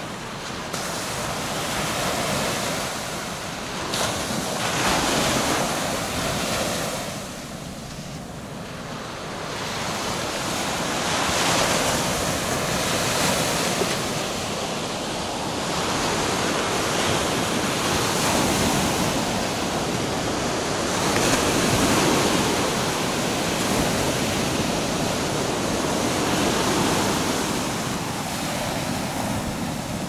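Small Baltic Sea waves breaking and washing up a sandy beach: a steady hiss of surf that swells and eases every few seconds.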